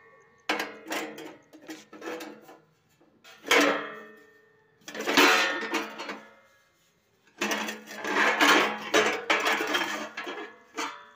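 Hand-made steel post-block mould being worked by hand: its steel plates and levers clank and ring in several bouts, the longest and densest in the second half.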